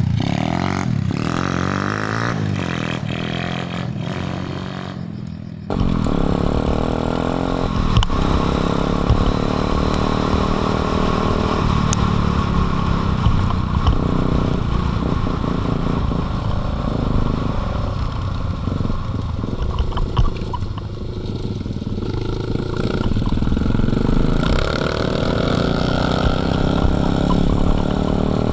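Small off-road dirt bike engines running as they ride along rough forest tracks, the engine note rising and falling with the throttle. About six seconds in the sound changes abruptly to a louder, denser rumble of engine and wind buffeting, picked up by a camera mounted on the riding bike.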